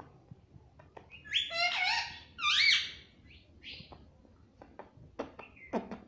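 Indian ringneck parakeet calling: a cluster of loud, rising-and-falling calls starting about a second in, then a shorter call, with a few sharp clicks near the end.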